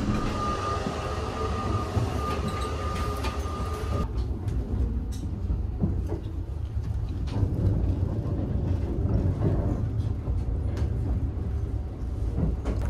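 Running noise of the Saphir Odoriko electric express train heard from inside a car: a steady low rumble with scattered short clicks from the running gear. A steady high tone sounds over it for about the first four seconds, then stops.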